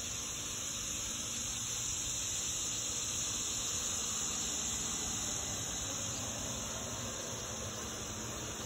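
An outdoor air-conditioning condenser unit running: a steady low hum under an even hiss.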